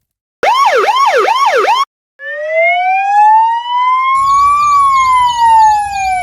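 Emergency vehicle siren sound effects. A fast yelping siren sweeps up and down about three times a second for roughly a second and a half, then stops. After a short gap a slow wailing siren rises and then falls, and about four seconds in a second, faster warbling siren joins it over a low rumble.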